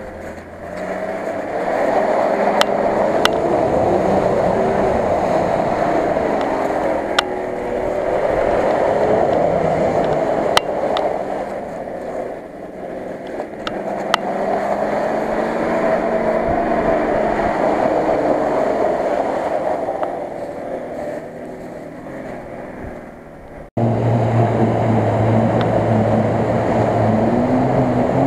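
Nissan Patrol's engine revving hard as the 4x4 ploughs through mud and standing water on tractor tyres, the pitch rising and falling with the throttle. Near the end a cut brings the engine closer and louder, with a deep steady hum and a rising note.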